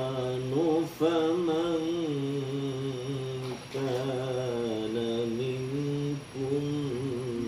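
A man chanting Quran recitation in a slow, melodic style: long held notes that waver and slide in ornaments, broken by short breaths about a second in, near the middle, and a little after six seconds.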